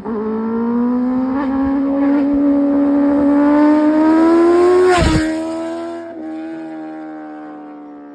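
Kawasaki Ninja ZX-10R superbike's inline-four engine accelerating toward the microphone, its note climbing steadily. About five seconds in, the bike passes with a sudden drop in pitch, then the engine fades as it rides away.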